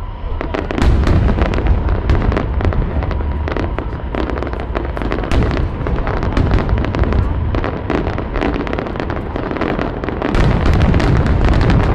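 Aerial fireworks display: a rapid, continuous barrage of overlapping bangs from bursting shells, turning louder and denser about ten seconds in.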